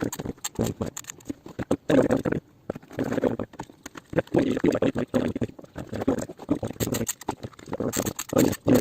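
Irregular clicks, knocks and rustling from parts being handled while a speaker module, its drivers and battery are fitted into a plastic speaker box.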